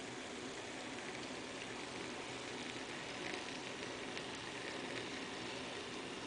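Model GP38 diesel locomotive and its boxcars rolling along the track: a steady, crackly running noise of motor and wheels on rail, with a few faint clicks in the middle.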